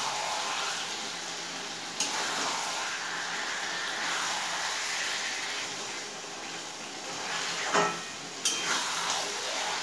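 Chicken pieces and spice paste sizzling steadily in a metal kadai while being stirred and turned with a metal spatula. The spatula knocks sharply against the pan about two seconds in and twice near the end. This is the kosha stage, the meat browning dry in the masala before any water goes in.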